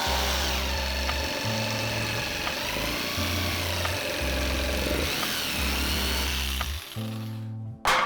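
A power tool running, its pitch wavering as it works, stopping about seven seconds in, over background music with a repeating bass line.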